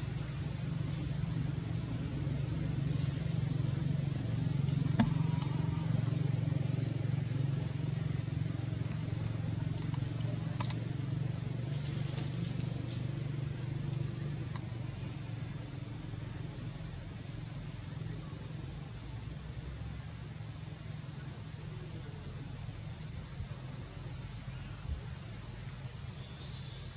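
Insects calling in a steady, unbroken high-pitched drone over a low hum, with a couple of faint clicks.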